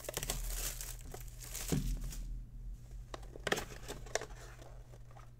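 Plastic shrink-wrap being torn and crumpled off a box of trading cards: dense crinkling for about the first two seconds, then a few scattered sharper crackles.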